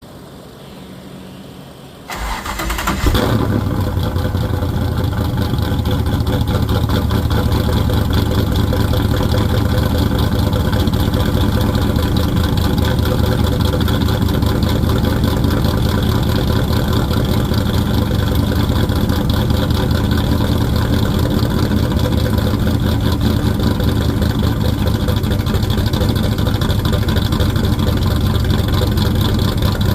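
The 1993 Camaro's LT1 5.7-litre V8 race engine cranks for about a second and fires about three seconds in, then runs at a steady idle.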